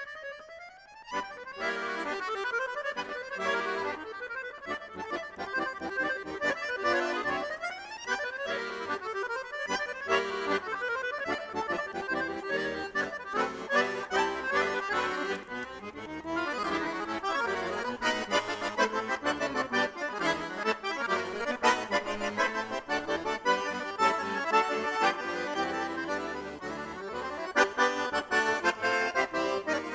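Chromatic button accordion playing a fast solo piece: quick runs of notes, several of them rising, and crisp short chords and notes, after a brief dip in loudness at the start.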